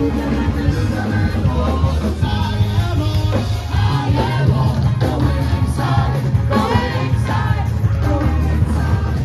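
Live gospel praise band playing loudly: singers on microphones over keyboard and electric guitar, with a heavy, steady bass line.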